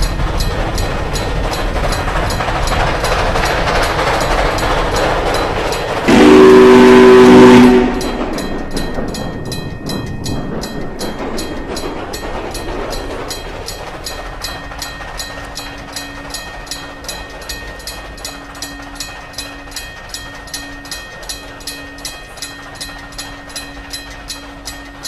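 Freight train passing with a steady rumble, its horn sounding one loud blast of about a second and a half some six seconds in. As it draws away, the level falls and the wheels clack over the rail joints about twice a second.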